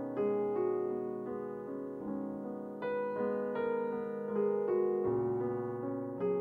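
Background music played on piano, a run of ringing notes and chords with new chords struck about three and five seconds in.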